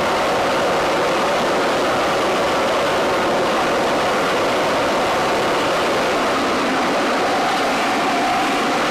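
SpaceX Starship Booster 7 venting gas during a tank depressurization midway through a cryogenic test: a loud, steady rushing hiss. A slightly higher tone comes into the rush near the end.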